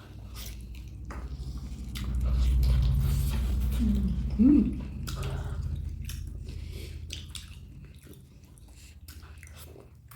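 Close-up chewing and biting of a person eating a meal, with wet mouth clicks over a steady low rumble, loudest in the first half, and a short pitched hum about four and a half seconds in.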